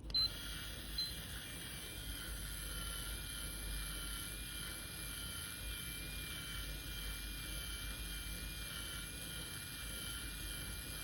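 Automatic rotating hair curler's small motor whirring with a steady high whine as it winds hair into the chamber, with two short high beeps in the first second; the whirring cuts off near the end.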